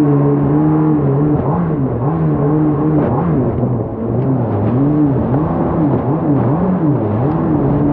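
Yamaha engine of a Corvette-bodied jet boat revving up and down over and over, its pitch swelling and dropping about once every three-quarters of a second as it carves turns on the water.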